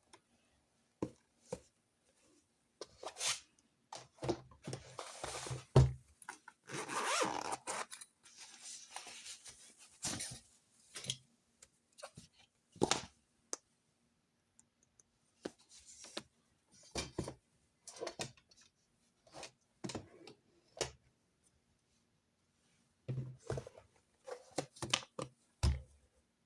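Desk work with stationery and paper: scattered light taps and clicks of objects set down and handled, with a longer rustling, scraping stretch about five to nine seconds in.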